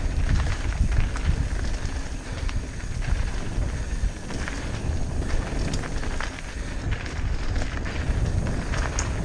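Mountain bike riding fast down a dirt singletrack. The tyres rumble over the trail and the bike rattles and clicks over the bumps, under a heavy wind rumble on the microphone.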